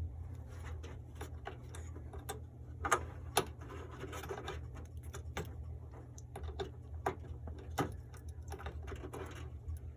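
Scattered light clicks and taps from handling fan cables and plastic connectors inside a PC case, a few sharper than the rest, over a steady low hum.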